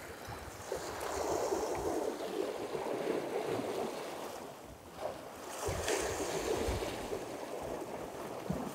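Small sea waves washing against a rocky shore, swelling and easing twice, with gusts of wind buffeting the microphone.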